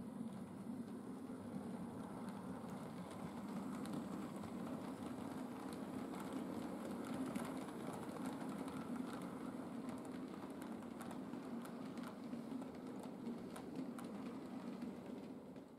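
Model railway locomotive running along the track: a steady motor-and-gear hum with light clicking of wheels over the rails and rail joints, easing off near the end as the train passes.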